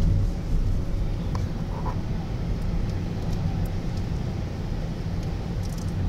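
Steady low rumble of a car's engine and road noise heard inside the cabin while driving slowly in town traffic, with a few faint clicks.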